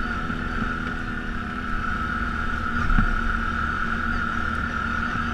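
ATV engine running at a steady pitch while riding on the trail, with a single thump about three seconds in.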